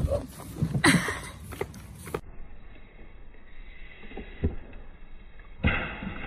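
Floor bicycle pump being worked to pressurize a half-emptied Mountain Dew bottle rocket, with a hiss of air in the first couple of seconds. About five and a half seconds in, the bottle blasts off its launcher with a sudden loud rush of spraying soda and air.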